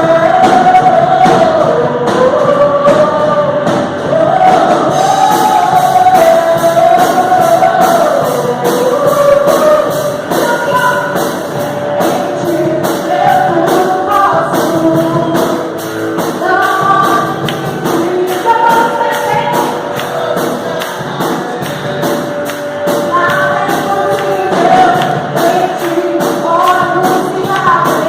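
Group of voices singing a gospel praise song over band accompaniment with a steady beat.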